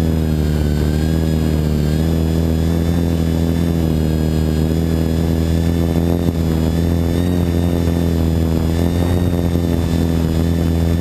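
Xaircraft 600 v2 quadcopter's electric motors and propellers running at a steady speed: a loud, even hum with a slight waver in pitch.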